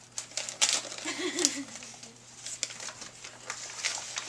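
Glossy paper gift bag crinkling and rustling as a child's hands dig into it and tip it out, in a run of short crackles.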